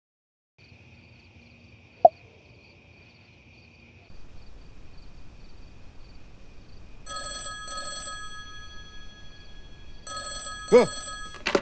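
Desk telephone ringing in two double rings, about three seconds apart, starting about seven seconds in. Before that there is only a faint steady hiss with one sharp click about two seconds in.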